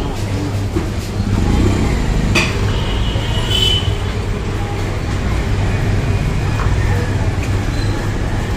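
Busy street ambience: a steady low rumble of traffic under background chatter of voices, with one sharp click about two and a half seconds in.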